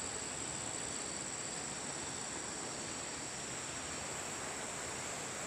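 Steady rushing of a shallow river running over stones, with a faint, steady high drone of insects above it.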